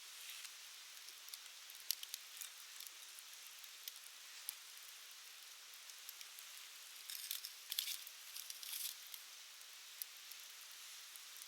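Wood campfire burning with a soft steady hiss and scattered sharp crackles and pops, which come thickest about seven to nine seconds in.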